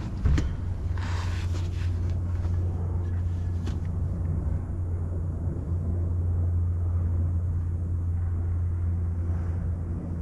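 Steady low droning hum, with a single knock just after the start and a few faint brief rustles in the first few seconds.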